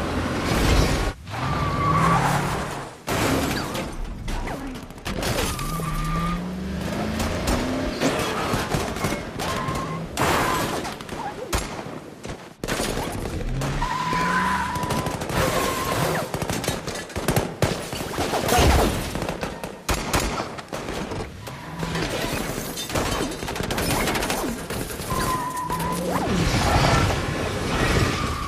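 Action-film car-chase soundtrack: repeated bursts of gunfire and impacts over car engines revving and tyres skidding, with music underneath.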